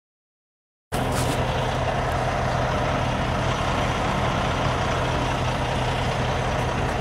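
Semi truck's diesel engine idling, heard from inside the cab: a steady running noise with a low, even hum that starts abruptly about a second in.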